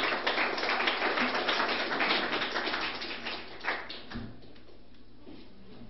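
Small audience applauding with dense, irregular clapping that dies away after about three and a half seconds, leaving a quiet room with one soft thump.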